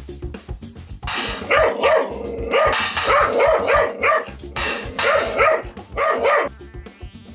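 Kai dog and Shiba fighting, with fast, repeated snarling and barking, while a hand cymbal is struck hard with a stick several times to break up the fight. The loud crashes and dog noise start about a second in and stop about a second before the end, over background music.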